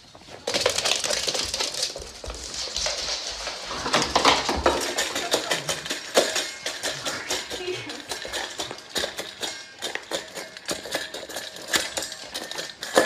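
A dog eating from a metal bowl, the bowl clattering against a wooden floor in rapid, irregular clinks and clicks.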